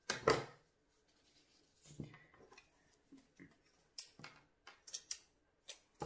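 Scissors snipping through garden twine: a few short, sharp snips and clicks, most of them in the second half, after a brief handling noise near the start.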